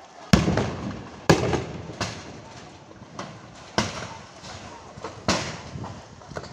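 Loud explosive bangs, five strong ones spread over about five seconds with a few fainter cracks between, the first two the loudest, each trailing off in a short echo.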